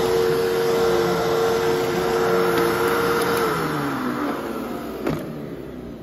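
Fantom Fury Special Edition Plus upright vacuum running with a steady whine, then switched off about three and a half seconds in: the motor winds down in a falling whine. A single click follows near the end.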